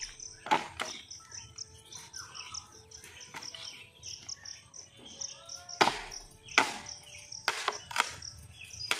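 Dry wooden branches being chopped and broken by hand: sharp cracks, two in the first second, then four more about six to eight seconds in. A steady high chirping runs underneath.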